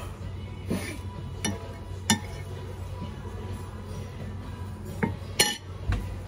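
Cutlery and dishes clinking: about six short, sharp clinks scattered across a few seconds.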